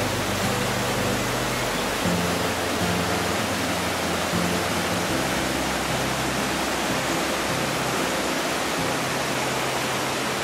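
Steady rush of water from a stream and small waterfall, with soft background music underneath: low held notes that change every second or two.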